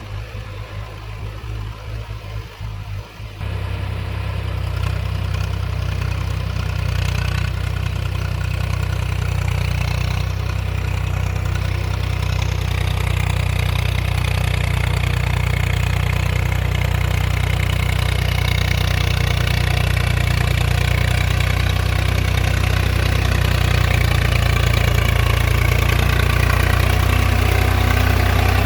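Tractor diesel engine running under a rotavator, choppy for the first three seconds, then suddenly louder and steady for the rest.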